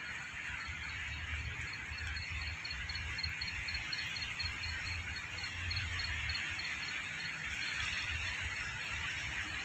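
Outdoor ambience: a steady hiss over a fluctuating low rumble, with a rapid, even series of short high chirps, about five a second, that stops about seven seconds in.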